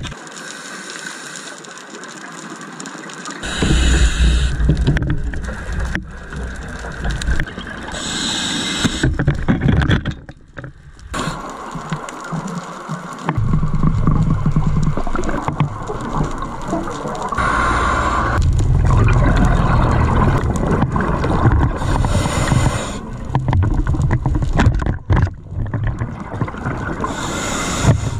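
Underwater recording: a scuba diver's exhaled bubbles burble out in short bursts every four to five seconds over a steady low rumble.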